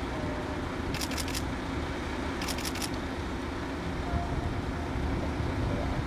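Piper PA46-350P Malibu Mirage's turbocharged six-cylinder piston engine running steadily at low power, a low propeller drone, as the aircraft rolls out on the runway after landing. Twice, about a second and about two and a half seconds in, comes a quick run of about four sharp clicks, like a camera shutter firing in burst mode.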